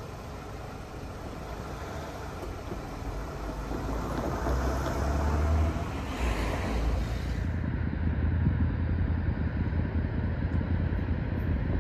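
Outdoor vehicle rumble that builds to a peak about five to six seconds in. The hiss then drops away suddenly, and a low steady rumble with wind on the microphone carries on.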